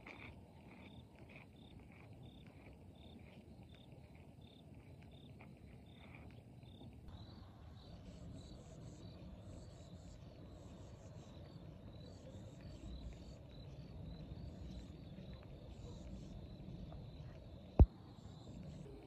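Crickets chirping steadily at dusk, short high chirps repeated a few times a second, their pattern changing about seven seconds in. A low rumble runs underneath, and a single sharp click is the loudest sound, near the end.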